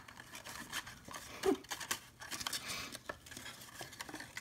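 Faint rustling and small clicks of a cardstock paper basket and ribbon being handled as the ribbon is threaded through punched holes, with one short low hum about a third of the way in.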